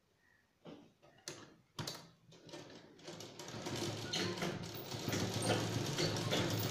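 A few clicks and knocks as fabric is set under the presser foot, then about three seconds in a sewing machine starts running steadily, stitching the fabric.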